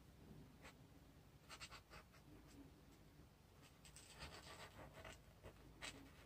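Faint scratching of a felt-tip marker colouring on sketchbook paper, in groups of quick short strokes, the busiest about four to five seconds in.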